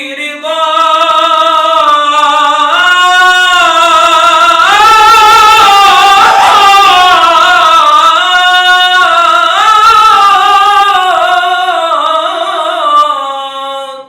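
A man singing a long wordless melismatic passage of an Islamic nasheed (inshad): one drawn-out vocal line with wavering ornaments. The line climbs higher about five seconds in and comes back down near the end.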